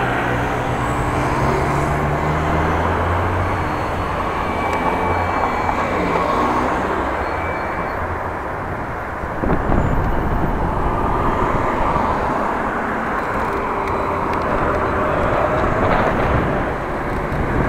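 Cars and vans driving past close by on a city road: engine hum and tyre noise on asphalt, one vehicle's engine note clear near the start, with a louder low rumble from about halfway through.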